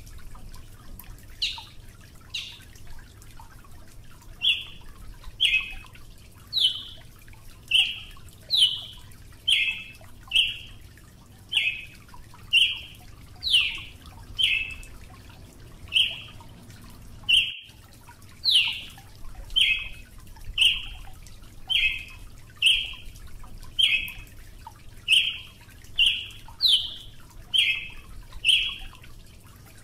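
Brazilian tanager (Ramphocelus bresilius) calling: a long series of short, sharp notes at about one a second, some sliding downward in pitch.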